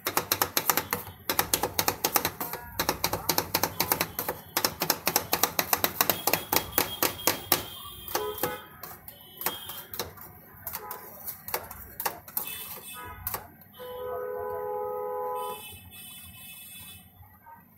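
A metal spatula rapidly chopping ice-cream mix on the frozen steel plate of a rolled-ice-cream cold pan: sharp clacks about five a second, thinning to sparser taps and scrapes after about eight seconds. Near the end a steady tone sounds for about a second and a half.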